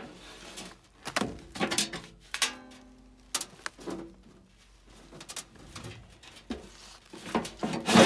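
Scattered knocks, clicks and scrapes of tools and sheet-metal parts being handled in an old Rheem gas furnace's blower compartment, with a few short ringing tones.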